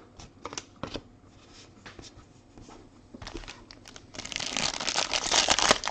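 Trading cards being handled with light scattered clicks, then from about four seconds in a card pack's wrapper crinkling and tearing as it is opened.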